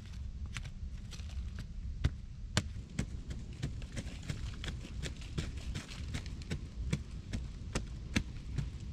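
A small hand tool digging into a bank of soil: sharp chops and scrapes in a quick, uneven rhythm, two to three strikes a second, over a steady low rumble.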